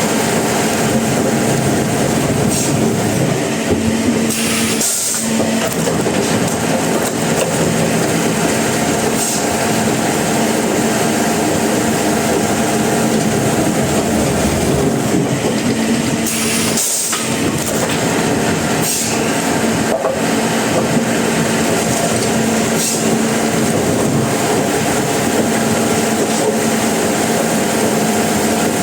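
Sawmill machinery running loudly and steadily, with a short change in the sound about five seconds in and again about seventeen seconds in.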